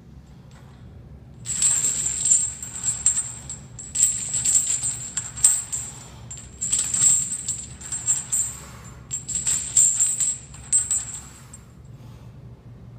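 Heavy lifting chains hanging from a loaded barbell jingling and clinking during bench-press reps: a burst of metallic rattling with each rep, about six in all, each a second or two long.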